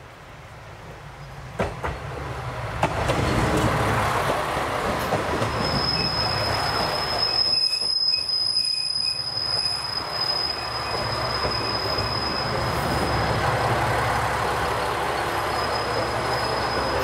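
JR East KiHa 101 diesel railcar pulling into a station, its wheels clacking twice over rail joints as it comes in. A high, steady squeal sets in about five seconds in and holds as the train brakes, over the low running of its diesel engine.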